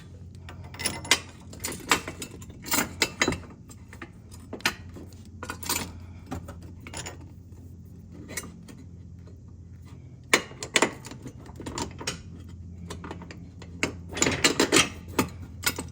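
Metal clinks and knocks from a steel mounting plate and nuts and bolts being handled and fitted by hand, in scattered taps with a busier flurry near the end, over a steady low hum.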